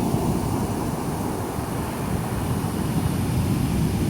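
Big sea waves breaking on a beach: a steady, deep rumble of surf, with wind buffeting the microphone.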